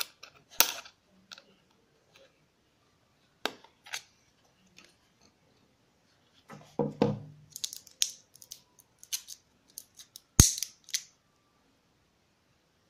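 Sharp plastic clicks and snaps, with light rattling and a dull handling knock, as the battery cover of a handheld laser distance meter is prised off and its batteries are handled. The loudest snap comes about ten seconds in.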